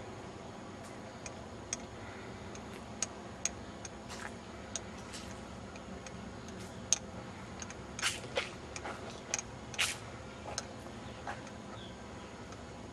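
Scattered, irregular sharp clicks and ticks over a steady faint hiss, with a cluster of louder clicks about eight to ten seconds in.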